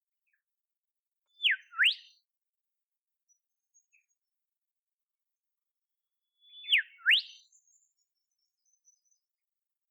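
Olive whistler giving two whistled calls about five seconds apart. Each is a clear note that slides down, then sweeps sharply up.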